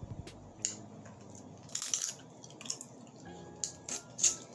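Close-up eating sounds of seafood boil: wet, sticky clicks and crackles of chewing and of fingers picking at saucy seafood, irregular and a few at a time.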